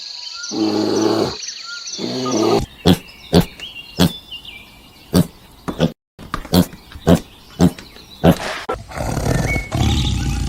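A farm animal's low, drawn-out calls in the first two seconds, then a run of about nine sharp knocks, then a low rumble near the end.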